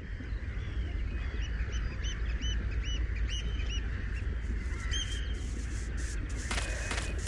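Jungle ambience with a steady low rumble and bird calls: short repeated notes, each rising and falling, through the first few seconds. Near the end, quick running footsteps begin.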